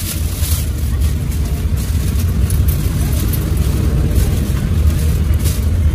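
A steady low rumble, with light crinkling of plastic bags as food is packed into them.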